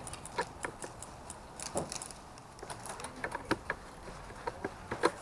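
Faint, irregular clicks and knocks, a dozen or so scattered unevenly, with no steady rhythm.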